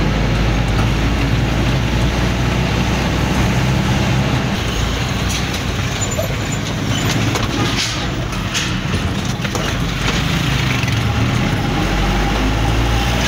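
Inside a moving vehicle's cab: a steady low rumble of engine and road noise, with a few sharp clicks around the middle.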